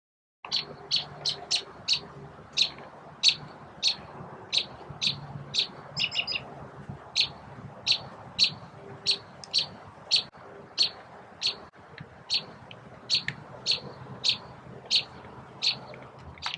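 A bird chirping over and over, short high notes about two a second, with a quick run of notes about six seconds in.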